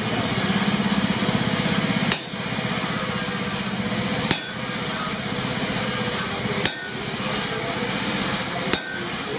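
Four heavy hammer blows on hot steel at an anvil, evenly spaced about two seconds apart, over a steady running machine sound.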